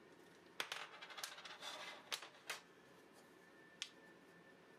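Small plywood parts, a ball bearing and an axle pin being handled and fitted together: a run of light clicks and scraping for about two seconds, then a single sharp click near the end.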